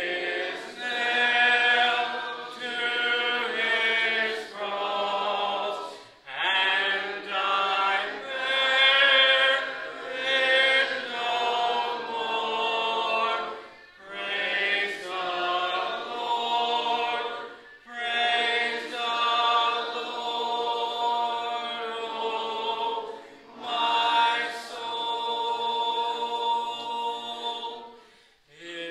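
A congregation singing a hymn unaccompanied, many voices together in phrases of a couple of seconds with brief breaths between.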